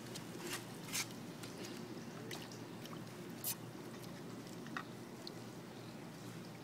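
A gloved hand squeezing and rubbing soaked paper in a plastic basin of water: quiet squelching and sloshing, with a few short sharp splashes in the first few seconds.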